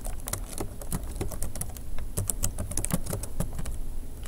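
Computer keyboard typing: a run of uneven key clicks, several a second.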